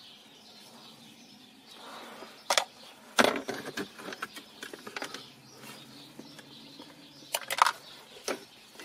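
Hard plastic car interior trim being handled: sharp clicks and knocks as the removed rear ashtray holder of a BMW E36 centre console is knocked against the console. The knocks come singly and in small clusters, around three seconds in and again near the end.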